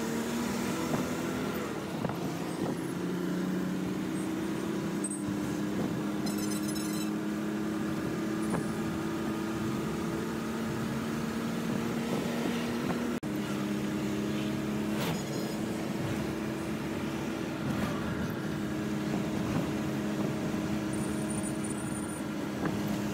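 Truck engine running steadily at an even speed, heard from inside the cab while driving.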